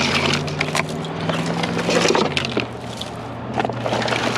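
Scrap being pulled and sorted from a curbside pile of wire and tangled Christmas lights: irregular clattering, cracking and rustling. Under it runs a steady low hum that drops slightly in pitch about two seconds in.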